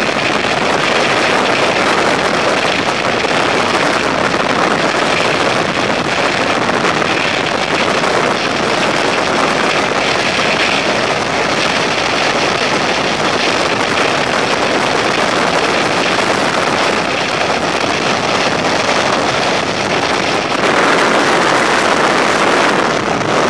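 Loud, steady rush of freefall wind buffeting the camera flyer's microphone during a tandem skydive, briefly louder near the end.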